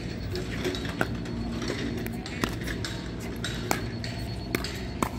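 Pickleball paddles hitting the plastic ball during a rally: about five sharp, ringing pops, one every second or so, over faint voices and a low hum.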